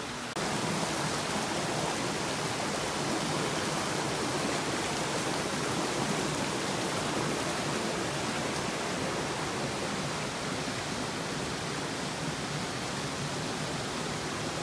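Steady rushing noise of running water, starting abruptly just after the start.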